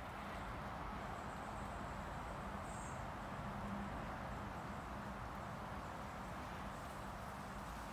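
Steady woodland outdoor ambience: an even background hiss with a thin, high steady tone above it and no distinct event.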